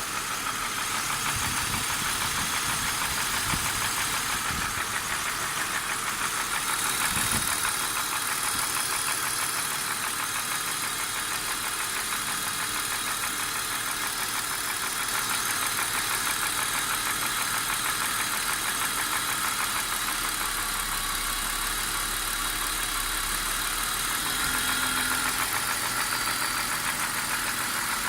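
BMW E39 engine idling steadily with a rapid, regular knocking. The owner finds that this knock goes away when the oil filler cap is lifted.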